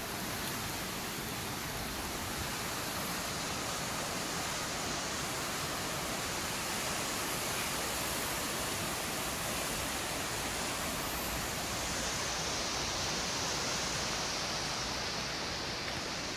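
Fast-flowing river rushing over rocky whitewater rapids: a steady, even rush of water.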